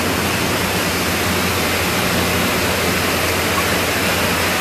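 Steady loud rushing noise with a low hum underneath, from running machinery.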